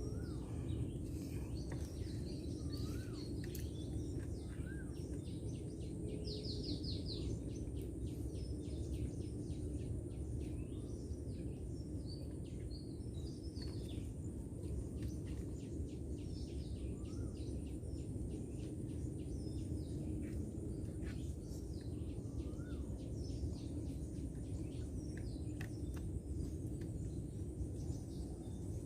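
Small birds chirping and calling in short, repeated notes over steady low background noise, with a thin steady high-pitched tone underneath.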